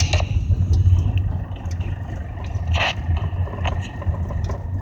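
Car creeping forward at low speed, heard from inside: a steady low engine and road rumble, with a few faint ticks and a brief rustle about three seconds in.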